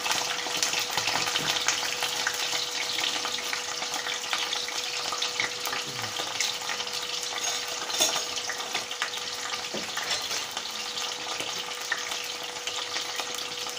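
Raw jackfruit cubes sizzling and crackling steadily in hot oil in a kadai, shallow-frying until golden brown, with a faint steady hum underneath.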